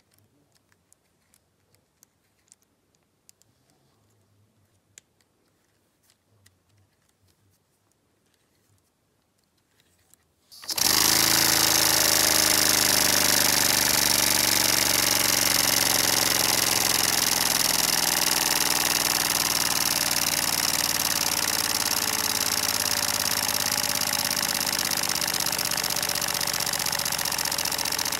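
Near silence with faint clicks, then about ten seconds in a Lego pneumatic flat-twin engine starts running on compressed air. It runs with a loud, steady hiss and a fast mechanical running sound underneath, easing off slightly toward the end.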